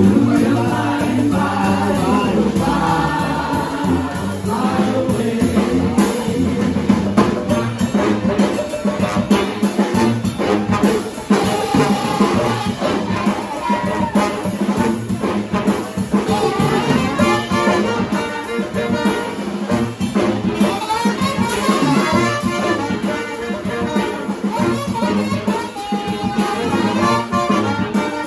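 A live brass band playing a New Orleans-style tune: trumpets, trombones and saxophones over a drum kit.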